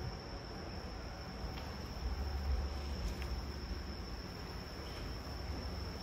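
A steady high-pitched tone, like an insect trill or an electrical whine, runs unbroken over a low rumble of room noise, with two faint ticks.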